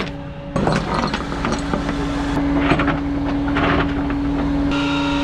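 A rollback tow truck runs with a steady hum while steel tie-down chain clanks and rattles, with a few sharp metal knocks, as the chain is hooked to the underside of a car on the steel deck.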